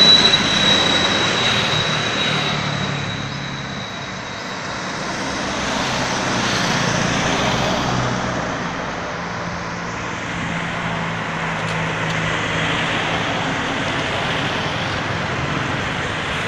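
Road traffic passing: engine and tyre noise that swells as vehicles go by, loudest about six to eight seconds in and again near the end.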